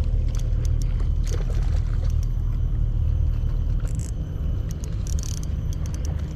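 Wind buffeting the microphone as a steady low rumble, with scattered light clicks and ticks on top.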